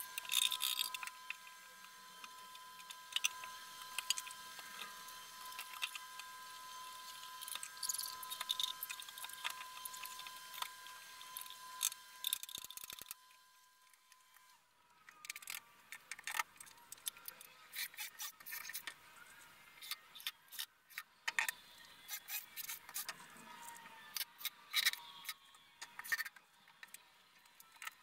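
Scattered light clicks and knocks of wooden panels and small tools being handled on a workbench, over a steady faint high whine that stops about halfway through.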